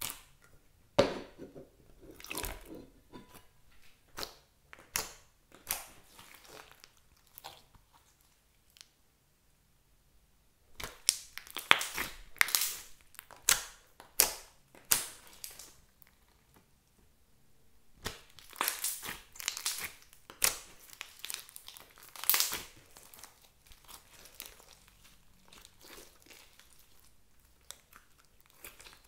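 Hands squeezing, kneading and stretching a large mass of glossy slime, making wet squelches and many short sharp clicks and pops in bursts. There is a quiet pause about a third of the way through.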